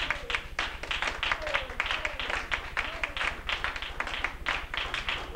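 Congregation clapping along in a quick, steady rhythm of about four claps a second, over a low hum.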